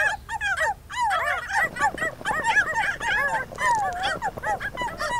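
Several puppies yipping and whimpering at once, a dense, unbroken chorus of short high cries that rise and fall in pitch.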